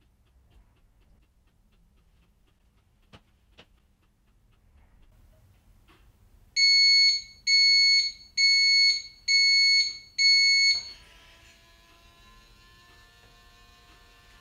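Breville TT24 Lightning toaster beeping five times, each beep lasting just under a second and repeating about once a second, as its timer reaches zero and the toast is done. A faint steady hum follows as its motorised carriage lifts the toast.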